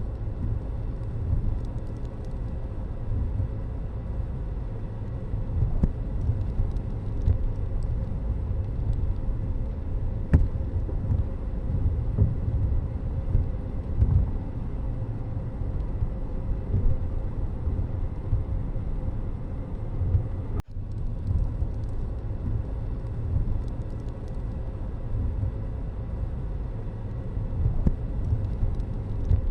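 Steady low rumble of a road vehicle on the move, its running and road noise holding an even level throughout, with a faint steady hum above it.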